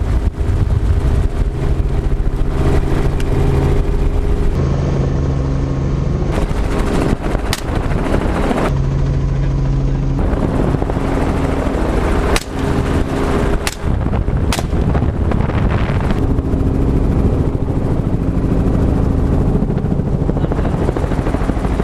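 Helicopter turbine and rotor noise in a doors-off cabin, loud and steady throughout. About four rifle shots ring out over it, spread from about a third of the way in to the middle.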